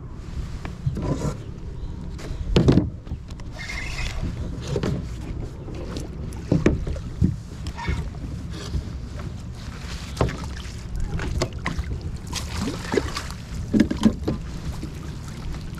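A fish being reeled in and netted beside an inflatable boat: water splashing and the knocks and bumps of handled gear against the boat, over a steady low wind rumble on the microphone. The loudest bumps come about three seconds in and near the end.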